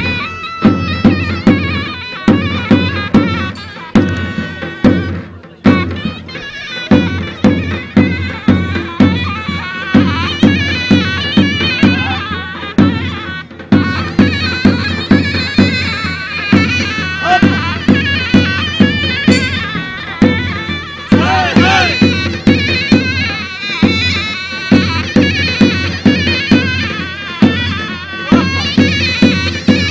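Turkish folk dance music: a loud, reedy shawm (zurna) plays a fast, ornamented melody over a steady beat on a large bass drum (davul). The music breaks off briefly twice, about five and about thirteen seconds in.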